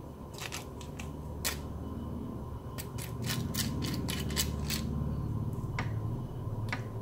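A run of sharp, light clicks and taps from a silicone basting brush dipped in a small ceramic bowl and dabbed onto pork skin, busiest in the middle, over a steady low hum.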